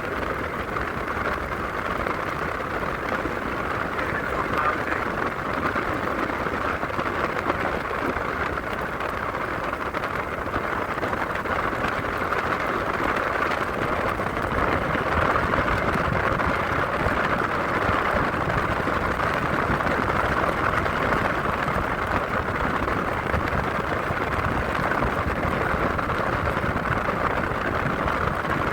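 Car driving steadily, a continuous rushing of road and wind noise with no change in level.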